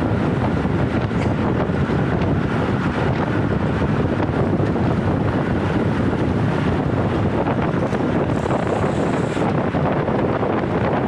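Steady, loud wind noise buffeting the microphone of a handlebar-mounted action camera on a road bike moving at about 46 km/h in a group ride.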